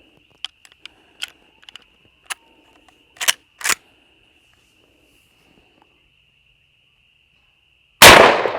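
A few light clicks and knocks, then a single loud shot from a Rossi 92 lever-action rifle in .357 Magnum about eight seconds in, its report echoing away. A steady high insect drone runs underneath.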